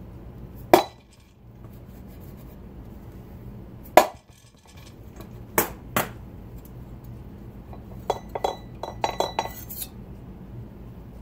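Sharp metallic taps on a 6-71 blower's end plate, knocking it over in small steps to close up the rotor-to-case bottom clearance. Four taps, each ringing briefly, are spread over the first six seconds, then a quick run of lighter metal clinks comes about eight seconds in.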